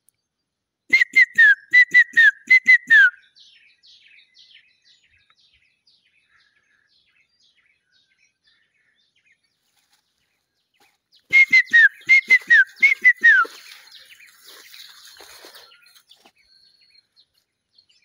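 A person whistling a bird-imitating phrase twice, about ten seconds apart: each a quick run of short notes ending in a couple of falling slurs. Faint, distant bird calls answer after each phrase.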